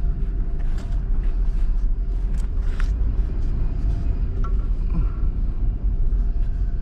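Steady low rumble of a 1997 Pontiac Firebird running, heard from inside its cabin, with a few faint ticks over it.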